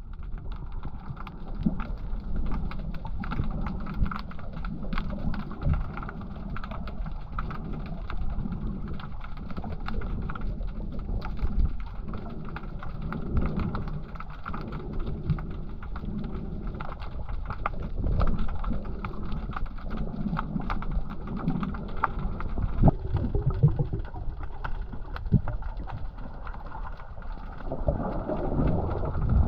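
Underwater sound picked up by a submerged camera: a muffled water rush with constant fine crackling and ticking of bubbles, and a few dull low bumps.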